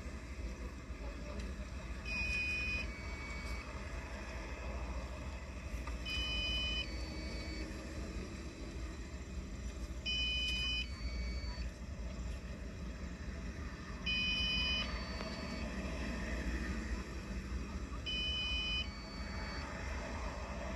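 An electronic two-note beep, a higher tone then a shorter lower one, repeating about every four seconds over a steady low hum.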